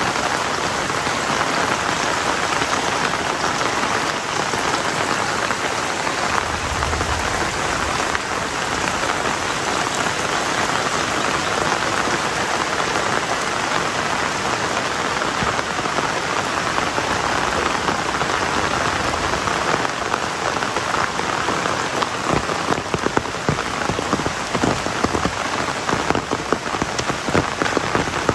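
Heavy rain falling steadily in a dense, even hiss, with sharper individual drop impacts standing out over the last several seconds.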